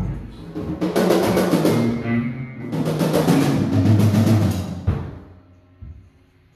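Drum kit played live in two runs of about two seconds each, rolls on the drums under crashing cymbals, stopping suddenly about five seconds in, with one more hit near the end.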